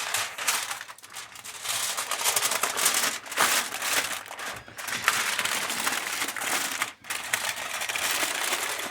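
Aluminium foil crinkling and crumpling as it is folded by hand into a wrap, with a brief pause about seven seconds in.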